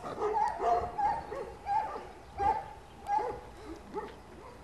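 Pug puppy whimpering and giving small yips, a string of short, wavering, high cries that grow fainter toward the end.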